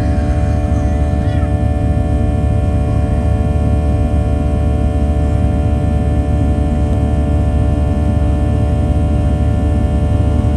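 Cabin noise of a Boeing 737-800 with CFM56-7B turbofans at climb power, heard from inside the cabin: a steady, loud low rumble with several steady whining engine tones over it.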